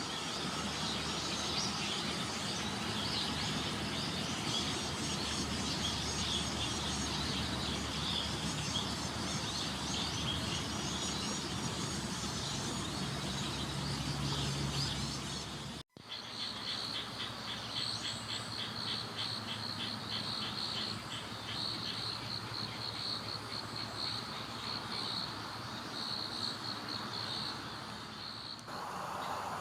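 A dense chorus of singing insects, crickets and the like, chirping and trilling together. Just past halfway the sound cuts out for an instant and resumes with a steadier, rapidly pulsing trill.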